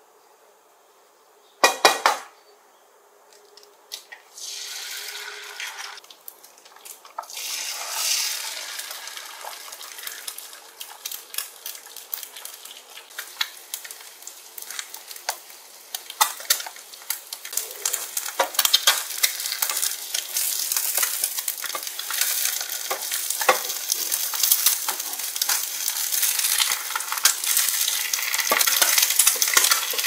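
Food sizzling in a frying pan while a utensil stirs and clinks against it, after a sharp knock about two seconds in. The crackling grows denser and louder through the second half.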